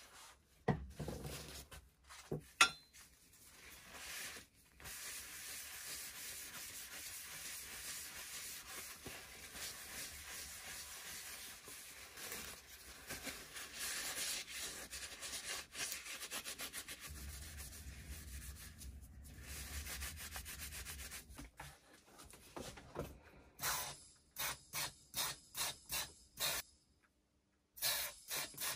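Paper towel rubbing and wiping over bare metal pulley parts in a long, even scraping rub, after a couple of sharp knocks in the first few seconds. Near the end a spray gun gives a quick run of short spray bursts, stops briefly, then starts again.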